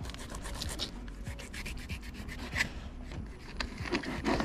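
Flexible fillet knife slicing into a blackfin tuna, its blade scraping along the bones in a run of short, scratchy strokes.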